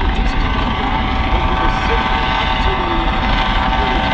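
Coast Guard rescue helicopter hovering close by: a steady heavy rotor and turbine noise with a steady high whine running through it.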